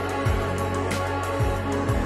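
Background music with a steady drum beat under sustained held notes.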